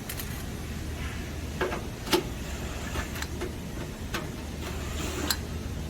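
Scattered sharp clicks and taps, about six at irregular spacing, as screws are worked out of the unit's front panel, over a steady low hum.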